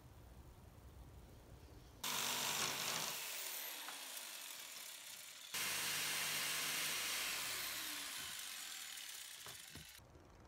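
Cordless drill working into pine timber battens. It whirs in two long runs starting about two seconds in and again a few seconds later, each starting abruptly, fading gradually, with its pitch slowly falling.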